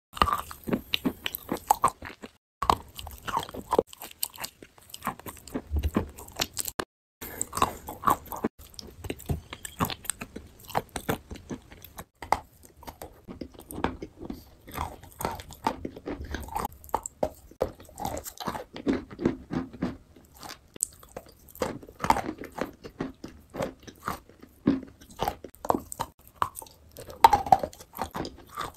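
Close-up crunching, biting and chewing of clay chunks: a dense, irregular run of crisp crunches and crackles, broken by two short silent gaps in the first few seconds.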